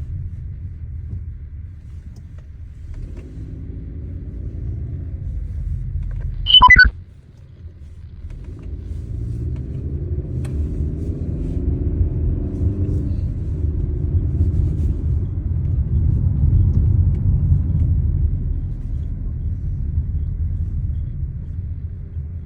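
Car driving, with a low engine and road rumble. About six and a half seconds in there is a single short, loud clunk as the rumble drops away, which the owner describes as the transmission clunking every time the car stops. After it the engine pulls away and its revs rise.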